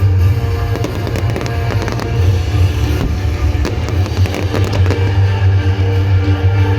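Fireworks bursting with sharp bangs every second or so over loud music with a heavy, steady bass.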